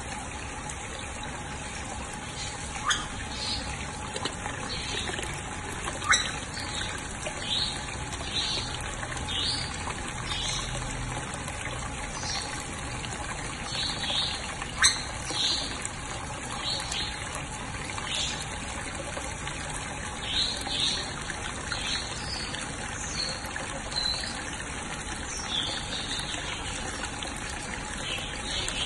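Water trickling and splashing steadily over a small stone step into a shallow pool, with three sharp clicks.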